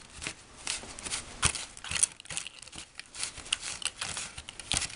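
Popin' Cookin' candy rice powder crackling as it takes up water, while fingers work the damp mixture in a plastic tray: a rapid, irregular run of small crackles and ticks.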